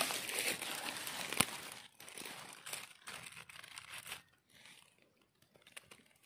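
Dry leaf litter crackling and rustling as a hand works through it and pulls a mushroom up from the forest floor, with one sharp click about a second and a half in. The rustling thins out over the last couple of seconds.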